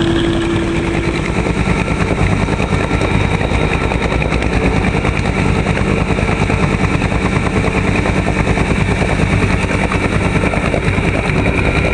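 Small fishing boat's engine running steadily with a fast, even pulse while the seine is hauled.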